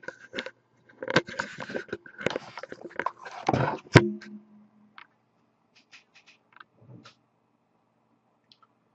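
Rustling and scraping of things being handled on a table. A sharp knock comes about four seconds in, then a few light clicks.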